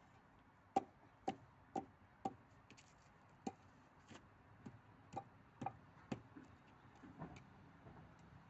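Mallet tapping a concrete garden edging strip to bed it down in its trench: about ten short, sharp knocks, roughly two a second, with a brief pause after the first four.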